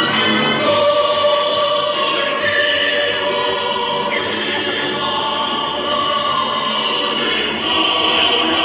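A large crowd singing together, a slow song with long held notes over the general noise of the crowd.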